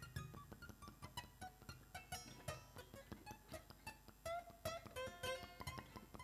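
Free improvisation on prepared piano and violin: a sparse run of short plucked and struck notes with taps and clicks among them, growing busier in the second half.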